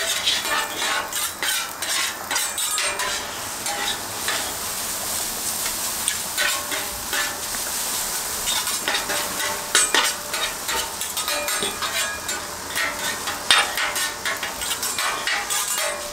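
Noodles and vegetables sizzling in oil on a Blackstone flat-top griddle, with two metal spatulas scraping and clicking irregularly against the steel surface as they are stirred and turned. A few sharper clacks stand out in the second half.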